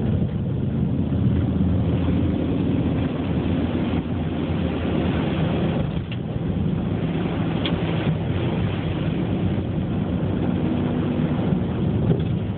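Subaru Forester's flat-four engine running at a steady cruise, with tyre and road noise from snowy streets, heard from inside the cabin. There are a couple of faint ticks midway.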